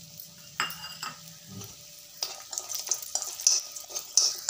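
Badi (sun-dried lentil dumplings) frying in a little oil in a metal kadai, with a spoon stirring them and scraping and clicking irregularly against the pan over a light sizzle.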